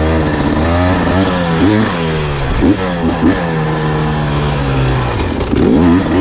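Dirt bike engine revving up and down several times, with a steadier engine running underneath.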